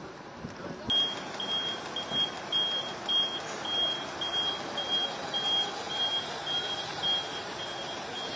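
A high electronic beep repeating about twice a second, starting about a second in, over steady outdoor street noise.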